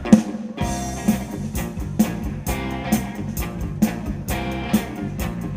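Rock band playing: electric guitar over a steady drum beat, with a hit about once a second and cymbals between.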